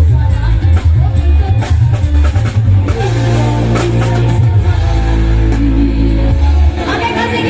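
Loud live music from electone keyboards played through a sound system: an instrumental passage with a heavy bass line and a steady drum beat, without singing.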